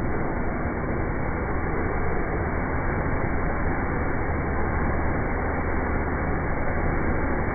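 Steady rushing roar of a wood fire being fanned by an air blower, with a low hum underneath and no change in level.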